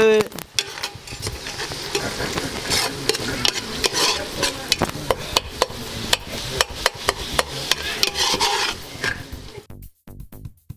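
Long metal spoon stirring a tomato-and-onion sauce in a large aluminium pot, clinking and scraping against the pot over a steady hiss from the cooking sauce. Near the end it gives way to music with a steady beat.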